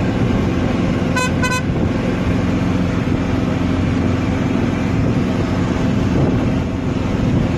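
Moving golf cart running steadily, with heavy wind rumble on the microphone. About a second in, two short high beeps.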